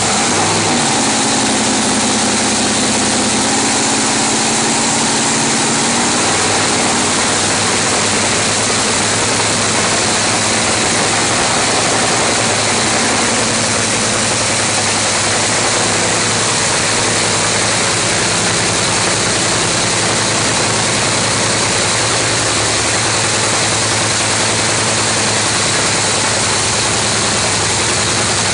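A loud engine running steadily as a dense, unbroken roar.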